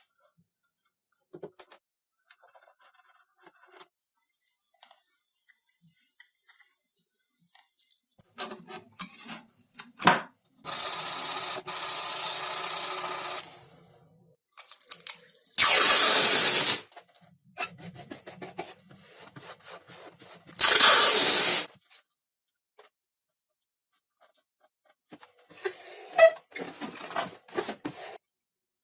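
Handwork on foam model parts: small scrapes, rubs and clicks, broken by three loud steady hisses that start and stop abruptly. The first hiss is the longest, about three seconds, and the other two last about a second each. A run of scratchy rubbing comes near the end.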